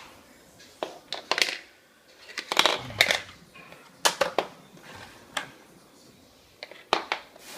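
Plastic vacuum cleaner attachments and their packaging being handled: irregular clicks, knocks and short rustles.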